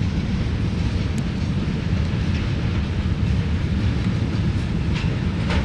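CSX freight train rolling past with a steady, heavy rumble. A couple of brief sharp clicks come near the end.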